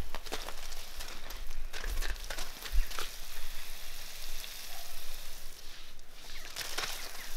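Water spraying from a garden hose and spattering on gravel: a steady hiss with an irregular crackle of drops.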